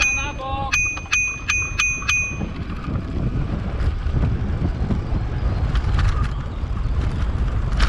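A bicycle bell rung five times in quick succession, about two rings a second, each ding clear and ringing. A low rumble of riding and wind noise follows, with a sharp knock at the very end.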